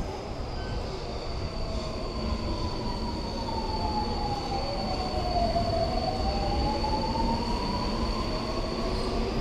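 Alstom metro train running in an underground station: a steady low rumble with electric traction-motor whine, two tones gliding in opposite directions, one falling and one rising, plus a steady high-pitched whine that stops near the end.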